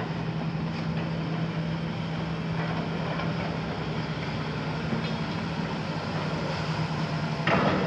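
Hitachi demolition excavator's six-cylinder Isuzu diesel engine and hydraulics running steadily with a constant low hum. A sudden loud crash of concrete rubble comes near the end as the demolition grab works the debris pile.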